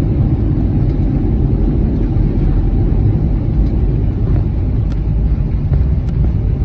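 Steady low rumble in the cabin of an Airbus A321-200 as it rolls along the runway after touchdown: engine and wheel noise heard from inside.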